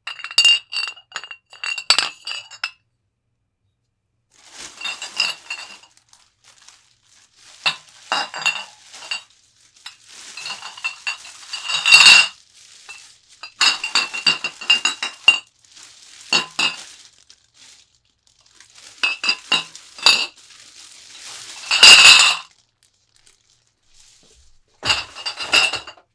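Empty glass bottles clinking and knocking against one another as they are packed and unpacked, in about nine short bursts with bright ringing tones; the loudest clatters come about halfway and near the end.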